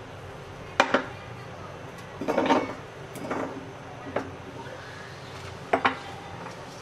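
Boiled jackfruit seeds dropping into a steel mixer-grinder jar and clattering against the metal in several separate knocks and short rattles, the longest rattle about two and a half seconds in and a sharp double knock near the end.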